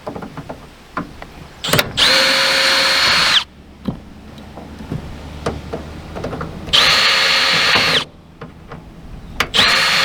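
Power drill running in three bursts, the first and longest about a second and a half, each spinning up and winding down as it backs screws out of an RV rooftop air conditioner shroud. Light clicks and knocks come between the bursts.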